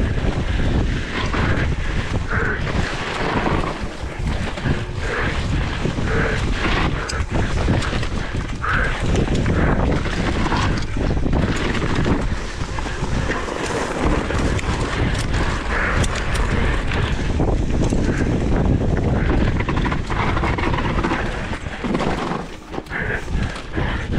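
Wind buffeting the microphone while a mountain bike descends a rough trail at speed, with constant rattling and frequent knocks from the bike over roots and rocks.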